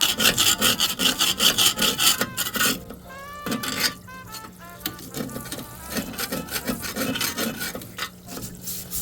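Hand scrubbing of a transmission part in a solvent parts washer: rhythmic rubbing strokes, about three a second, louder in the first three seconds and softer after. Light background music plays underneath.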